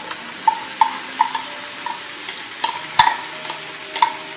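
Frying in a black iron wok as curd is poured over fried green chillies. About eight sharp, ringing clinks sound against the pan, the loudest about three seconds in.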